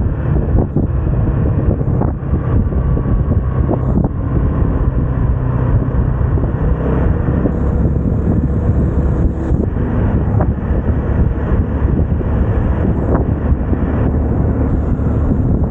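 Vespa scooter engine running steadily under way, with road noise and wind on the microphone and a few scattered clicks.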